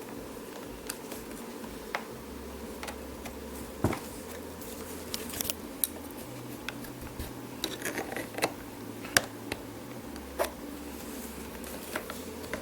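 Irregular clicks, taps and creaks of plastic trim as the door-handle piece of a 2013 Ford Mustang's inner door panel is worked loose from its retaining clips, over a steady low hum.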